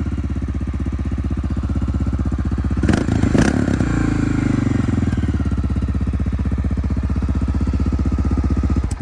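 Honda FMX650's single-cylinder engine running through twin Arrow exhausts at a steady, evenly pulsing idle, with two brief louder bursts about three seconds in. The sound stops abruptly at the very end.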